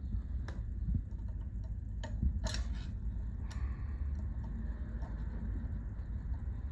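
Screwdriver working on the metal presser-foot screws of an industrial sewing machine: a few scattered light metal ticks, the loudest about two and a half seconds in, and a soft scrape around the middle as the screw is turned, over a low steady hum.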